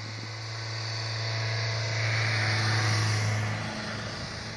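Land Rover Freelander driving past through deep snow: a steady engine drone with a hiss of snow under the tyres, growing louder as it nears, loudest about three seconds in, then fading as it moves away.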